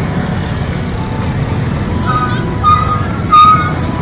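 Tour bus engine rumbling as the bus drives past, with a few short high tones about halfway through and a louder one a little before the end.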